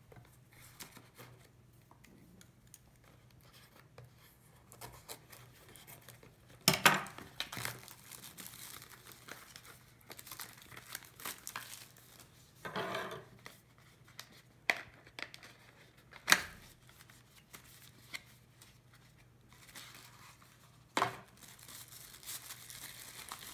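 Unboxing sounds: plastic packaging crinkling and tearing and a cardboard retail box being opened by hand, with scattered rustles and several loud sharp knocks.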